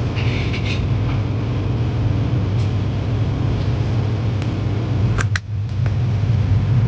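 Steady mechanical hum of a fan or small motor, with a brief dip about five seconds in and a few faint clicks.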